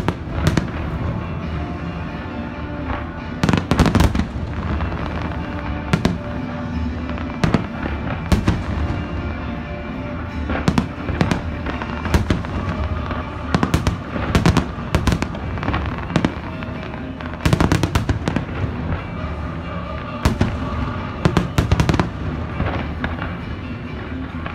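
Aerial fireworks display: shells bursting in sharp, irregular bangs, some in dense rapid clusters, with music playing underneath.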